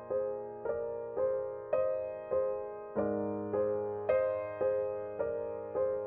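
Background music: a soft piano or keyboard figure repeating evenly, about two notes a second, each note fading into the next. The chord shifts lower about three seconds in.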